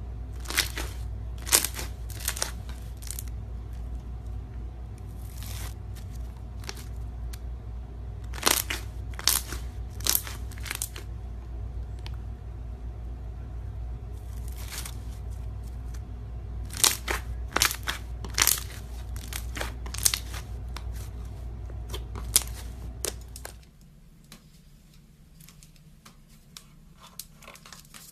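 Scattered sharp crinkling and crunching handling sounds, in irregular clusters, over a steady low hum that stops about 23 seconds in.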